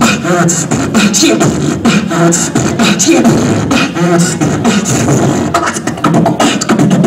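Solo beatboxing into a handheld microphone: a fast, dense beat of percussive mouth sounds with short hummed bass notes woven between them.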